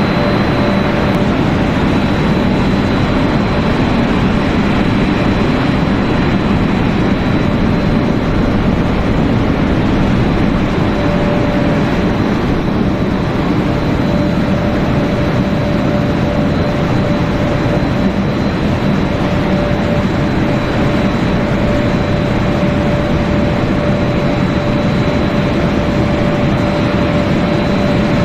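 Snack pellet extrusion line running: steady industrial machine noise from the extruder's motors and drives, with a constant high whine and a mid-pitched hum that drops out for a few seconds and then returns.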